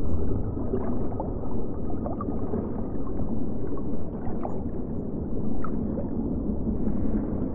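Manatee underwater: a steady low rumble and gurgle of water with a few faint, short chirps.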